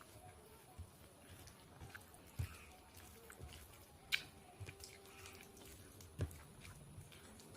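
Faint close-up chewing of a rice, dal and fish meal, with scattered soft mouth clicks and taps; a sharper click about four seconds in.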